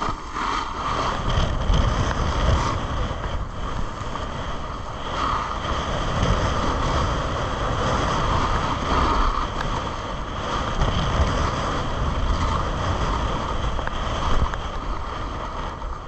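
Wind rushing over the microphone of a camera moving fast down a snowy ski run, a continuous rumbling rush that swells and eases unevenly, mixed with the scrape of sliding over packed snow.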